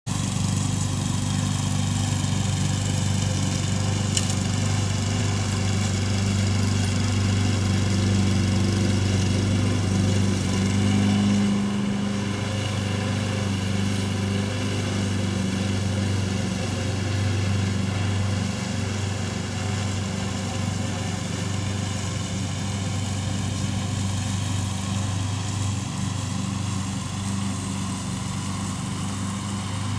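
Walk-behind gasoline lawn mower running steadily under load while mowing grass, its engine note holding an even pitch with a slight rise and fall in level.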